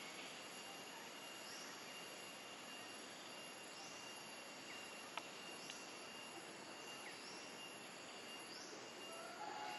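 Forest background: a steady insect hum with a thin high whine over it, and a short rising high call repeated every two seconds or so. A single sharp click about halfway through.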